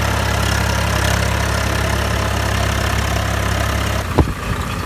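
Swaraj 744 FE tractor's three-cylinder diesel engine running steadily as it pulls through the field. About four seconds in the sound changes abruptly and a single sharp knock is heard.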